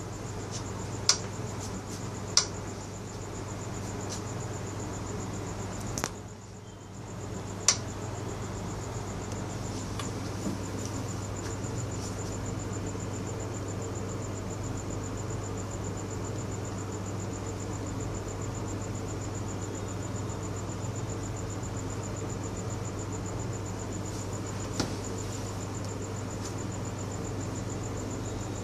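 A steady high-pitched trill of night insects over a low hum, broken by a handful of sharp clicks: four in the first eight seconds and one more near 25 seconds. The background briefly drops out about six seconds in.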